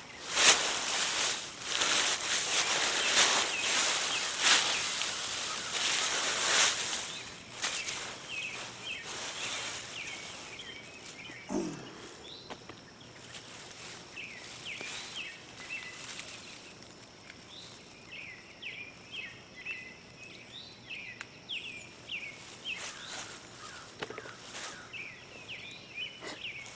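Potato plants being dug up and pulled from the soil: loud rustling and scraping for about the first seven seconds, then quieter. Small birds chirp throughout in short, repeated calls, most noticeable in the second half.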